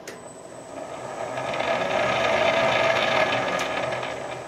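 Change-gear train and tumbler reverse of a Boxford lathe running under power, the spur gears meshing with a steady mechanical whir and rattle while they drive the gearbox and lead screw. It grows louder from about a second in and eases off near the end.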